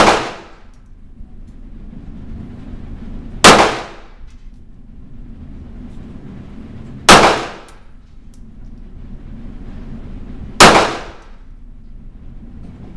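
Four single handgun shots about three and a half seconds apart. Each is a sharp crack with a short echo off the walls of an indoor range.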